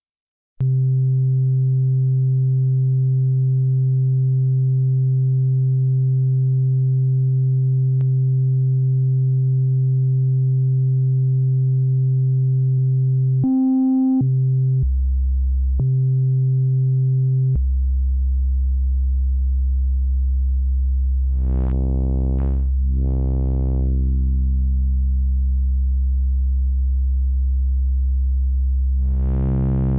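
Korg NTS-1 digital synthesizer playing a custom multi-vector phaseshaping oscillator: a steady held note, close to a plain sine tone, with a few quick note changes near the middle. It then settles on a lower drone whose tone brightens and dulls as one inflection point of the phase shaping is swept.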